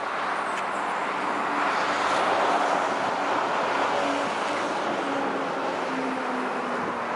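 Car on the move: steady road and tyre noise, with a low engine hum that shifts slightly in pitch.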